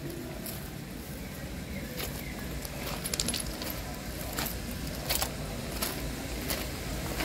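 Footsteps on gravel and dirt, heard as a string of short, sharp clicks and crunches about once a second, over a low steady rumble.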